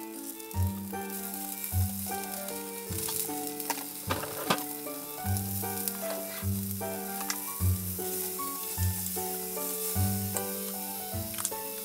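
Shrimp and sliced mushrooms sizzling as they fry in a small square pan, stirred with chopsticks near the end, over background music with a steady bass line.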